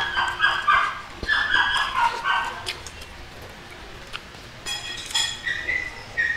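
A dog whining in high, wavering calls, in two stretches over the first two and a half seconds and briefly again near the end, with scattered small clicks of chewing.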